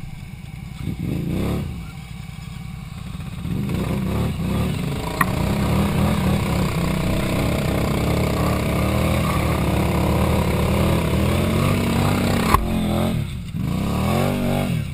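ATV engine revved hard and held at high revs for several seconds while the machine sits mired in deep mud, with a sharp click about two-thirds through and a fresh rising rev near the end. The rider thinks the CVT drive belt is slipping again.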